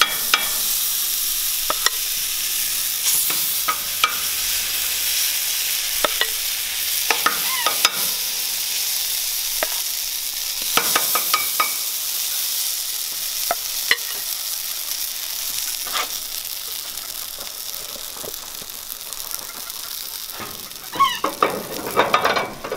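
Waffle batter sizzling steadily in a hot cast iron waffle iron, with a spoon scraping and clicking against the mixing bowl as the batter is poured in. Near the end there is a cluster of metal clicks and knocks as the iron is closed.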